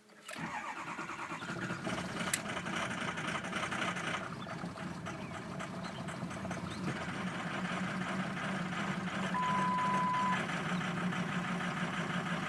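Ford 6.0 Powerstroke V8 turbo-diesel starting suddenly and then running with a steady diesel clatter, not running well just after a rebuild. A single beep of about a second sounds about nine and a half seconds in.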